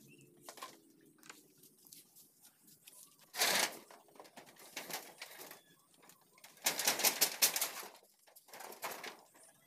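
Corrugated iron sheets rattling and scraping as a shed wall is worked loose by hand. The sound comes in short noisy bursts, a sharp one about three and a half seconds in and a longer, louder rattle around seven seconds.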